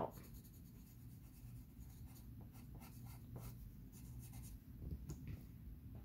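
A pencil scratching faintly on paper in short, irregular strokes while shading a drawing.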